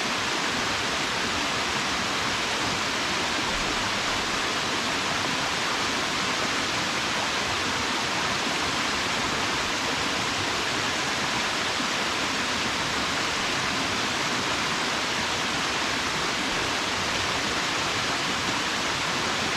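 Waterfall: water falling and splashing in a steady, unbroken rush, with its hiss strongest in the upper range.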